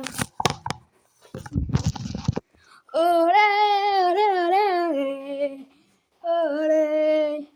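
A child singing or humming long, wavering notes without words, twice, after a few clicks and a short rushing noise near the start.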